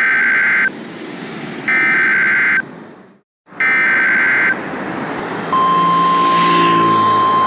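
Emergency Alert System SAME header: three bursts of digital data tones, each just under a second long and about a second apart, over a hiss of static. About five and a half seconds in, a long steady single-pitch alert tone starts.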